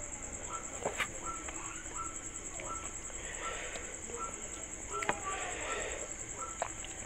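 Fingers working rice and fish curry on a steel plate and chewing, with a few sharp clicks. Behind it runs a steady high insect drone and a short animal call repeated at an even pace, about every three quarters of a second.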